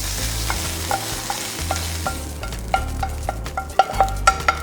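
Spinach frying in an oiled pan with a soft sizzle that fades about halfway, then quick metallic clinks and scrapes of a spatula against the pan, quickening near the end, as the cooked spinach is scooped out.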